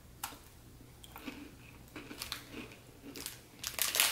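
A soft-baked biscotti being bitten into and chewed: short, irregular crunches and crinkles, louder near the end.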